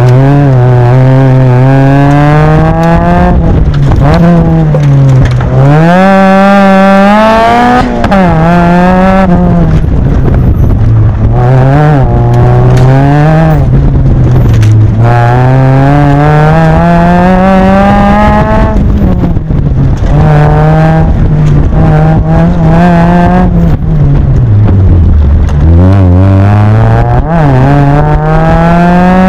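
Mazda NC Miata's four-cylinder engine, fitted with a ceramic header, race mid pipe and race muffler, revving hard under full throttle as the car accelerates and brakes through an autocross course. It is loud, with its pitch climbing for several seconds and then dropping back, over and over, as heard from the open cockpit.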